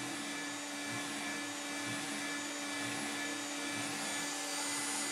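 Electric drive motor of a Bore Repair Systems EV3 portable boring bar running steadily, turning the bar as its tool bit machines a bore: an even whirring with one constant tone.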